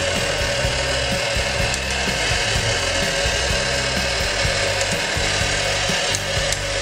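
Motorized toy parking-garage Ferris wheel turning, its small motor and plastic gears making a steady grinding whir.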